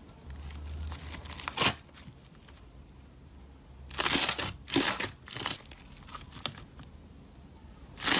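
Crunchy slime being squeezed and pulled, giving crinkly, crackling bursts: one short snap early on, a longer burst about four seconds in and two shorter ones soon after.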